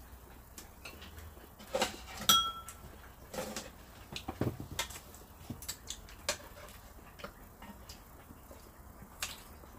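Metal kitchen scissors and tongs clinking and knocking against a frying pan as braised pork ribs are cut, a run of irregular clicks with one sharp ringing clink about two seconds in.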